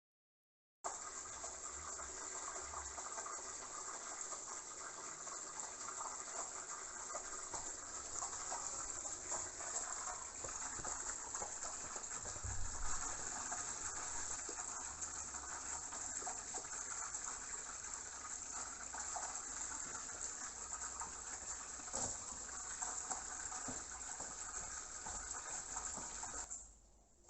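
Water gushing steadily from a hose into a waterbed mattress as it fills. It starts abruptly about a second in and stops shortly before the end.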